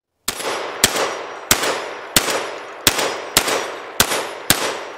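Remington V3 Tactical 12 gauge semi-automatic shotgun fired rapidly, eight shots about two thirds of a second apart, each shot ringing out with a lingering tail that fades away after the last one.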